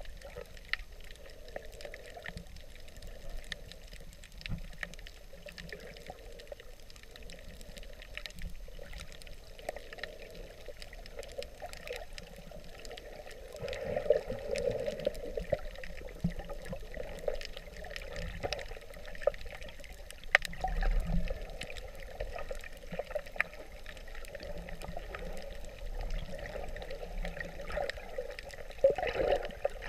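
Muffled underwater water noise recorded with the camera submerged while snorkeling over a reef: sloshing and gurgling with scattered small clicks, swelling louder a few times, around halfway, about two-thirds in and near the end.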